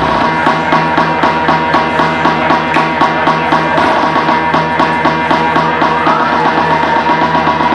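Loud music with a steady beat, played by a DJ over a sound system.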